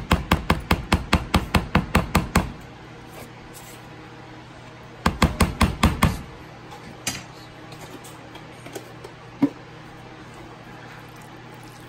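Metal spoon rapidly tapping against the edge of the dish, about six taps a second, to knock a dollop of sour cream off it. A run of taps lasts about two and a half seconds, a second shorter run comes about five seconds in, and one lone tap falls near the end.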